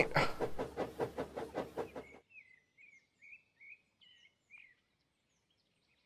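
Steam locomotive chuffing, about five beats a second, fading out and cut off about two seconds in. A few short, high bird chirps follow over near silence.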